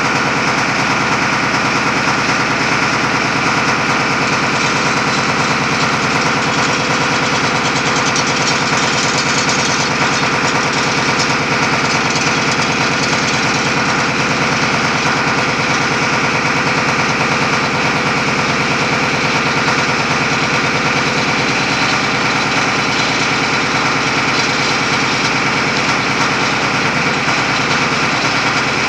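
Roof-bolting rig running steadily as it puts a bolt into the gallery roof, its machinery giving a loud, even noise with a fast rattle throughout.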